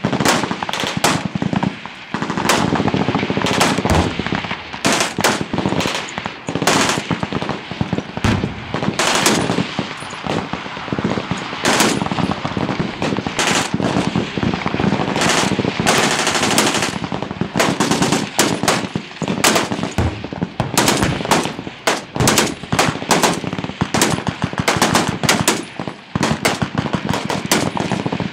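Machine guns firing long bursts of automatic fire, several guns overlapping into an almost unbroken rattle of shots with only brief gaps.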